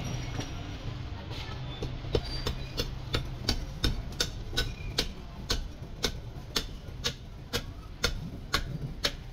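Butcher's knife cutting through a lamb's ribs in quick regular strokes: sharp knocks about two a second, starting about two seconds in.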